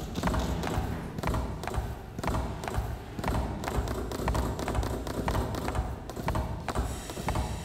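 Irregular taps and knocks, roughly two a second, from a pitchfork and a long pole struck as percussion on the concrete floor and metal fittings of a milking parlour, over a low rumble.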